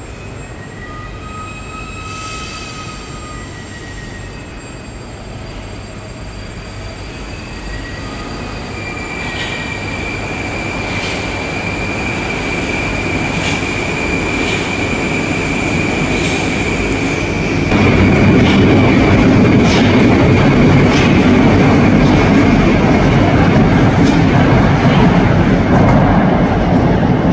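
Moskva-series Moscow metro train pulling out of the station: a few short tones, then a rising, steady electric whine from the traction drive, with wheels clicking over rail joints as it gathers speed. About two-thirds of the way in, this gives way abruptly to a much louder rumble of another metro train running in from the tunnel.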